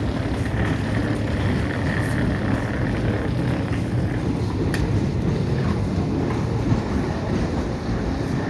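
Passenger express train pulling out of a station, its coaches rolling past with a steady rumble of wheels on rail, and one sharp click about halfway through.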